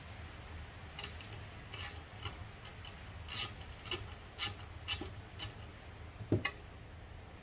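Transmission parts being handled during a teardown: a string of light clicks and scrapes, with a louder knock about six seconds in, over a steady low hum.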